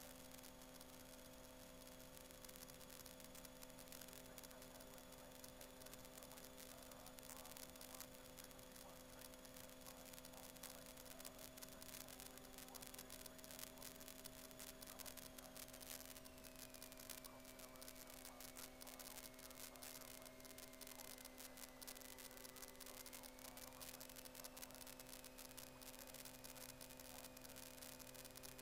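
Near silence: a faint steady electrical hum on the cockpit audio feed, with a thin high whine that drops in pitch about halfway through and rises slightly later.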